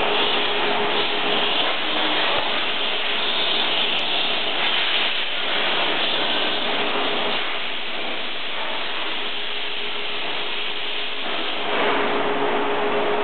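Roll-to-roll paper perforator running, its perforating blades working against a brush roller: a steady machine hiss with a constant hum tone. It eases slightly for a few seconds and picks up again near the end.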